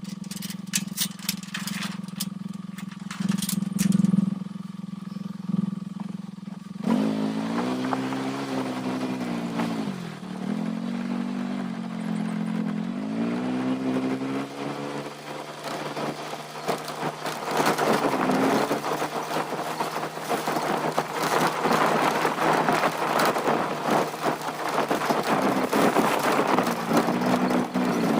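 A motor vehicle engine idles steadily with some clicking, then its pitch rises and falls as it is revved or put under changing load. In the second half it runs louder with a rougher rattling noise.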